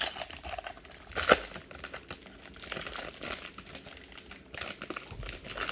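A trading card pack's wrapper crinkling as it is torn open and handled, with a sharp crackle about a second in.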